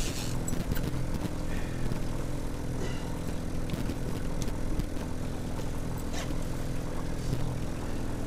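Boat's outboard motor running steadily at trolling speed, a low even hum, with a few light clicks from gear being handled on board.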